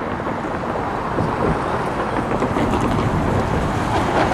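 Road traffic passing close by: a steady rush of tyre and engine noise, with wind noise on the microphone.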